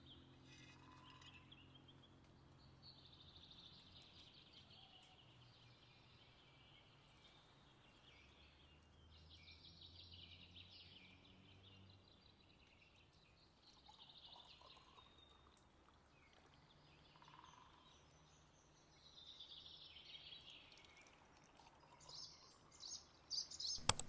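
Near silence with faint, scattered bird calls. Near the end, liquid starts pouring from a clay jug into a clay cup.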